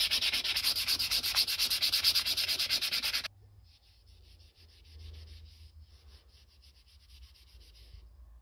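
Sandpaper on a sanding block rubbed rapidly back and forth over a knife's zebrawood handle, a fast, even rasping rhythm. It cuts off sharply about three seconds in, and much quieter spells of light rubbing follow.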